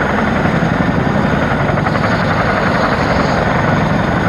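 A Chinook tandem-rotor helicopter running on the ground before take-off. Its turbines and rotor blades make a steady, loud rush with a rapid blade beat.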